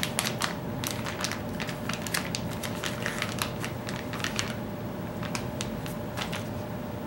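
Plastic packaging of soft-plastic fishing baits crinkling and crackling as it is handled and opened, with dense crackles for the first four seconds or so, then fewer.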